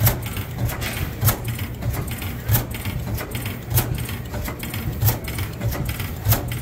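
Bessemer two-cycle gas engine with a flyball governor running, firing with a regular sharp beat about every one and a quarter seconds, lighter clicks between the beats, over a low hum.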